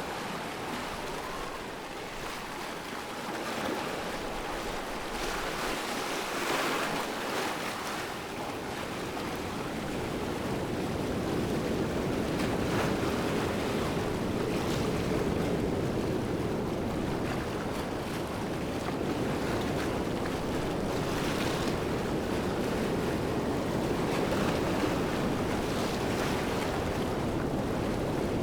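Waterfall: a steady rush of falling water that grows a little fuller about a third of the way through.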